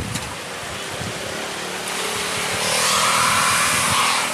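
Mitsubishi Xpander's engine revving while its front tyre spins on the wet road, with a hissing wheelspin sound that builds from about halfway through and drops off near the end. The tyre has lost grip on a surface the narrator believes is slicked with spilled diesel.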